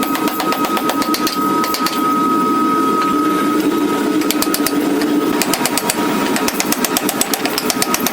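Forging power hammer striking rapidly and evenly, several blows a second, over a steady high machine tone. The blows ease off for a few seconds near the middle, then pick up again.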